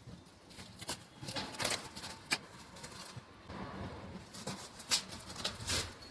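Packaging rustling and crackling as a parcel of books is opened by hand: a run of irregular short crackles and scrapes, sharpest about two seconds in and again near five seconds.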